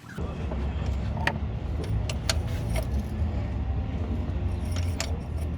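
A vehicle engine running steadily, with a few sharp metallic clicks over it.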